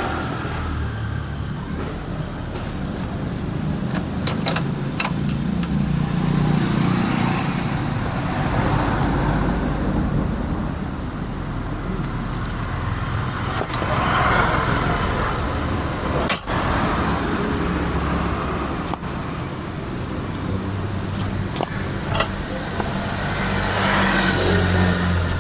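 Honda Activa scooter engine running steadily, swelling in loudness a few times, with several sharp clicks.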